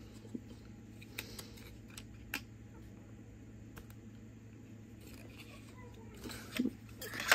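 Hands handling small makeup packaging on a tabletop: scattered light clicks and taps, with a louder brief rustle and clatter near the end, over a steady low hum.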